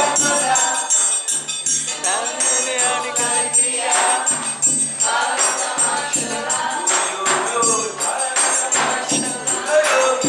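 Several voices singing a song to live percussion: shoulder-slung drums struck with sticks in a steady beat and a ringing triangle.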